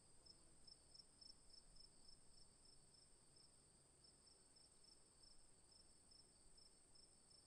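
Near silence with crickets chirping faintly, about three even chirps a second.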